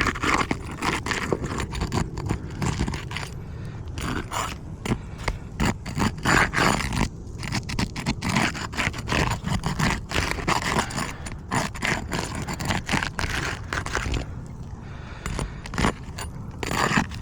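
A roof snake's thin metal blade scraping and prying under asphalt shingles, breaking their sealant strip: many irregular rasping scrapes with crackles, some louder than others.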